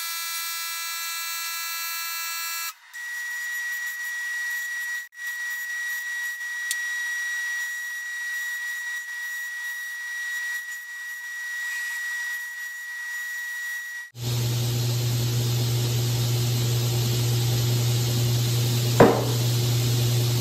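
Belt grinder running while a small carved wooden piece is sanded on it: a steady high whine with hiss. The sound changes abruptly a few times, and over the last seconds it becomes a deeper steady hum, with a sharp click near the end.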